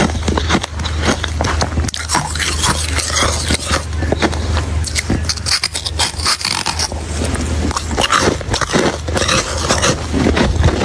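Ice being bitten and chewed close to the microphone: a dense, irregular run of loud, crisp crunches and cracks, over a steady low hum.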